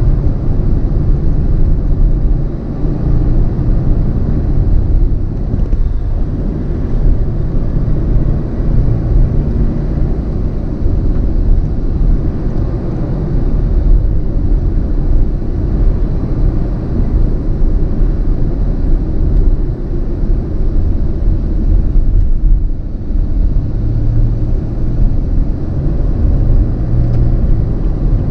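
Steady low rumble of a car on the move, with road and engine noise heard from inside the cabin.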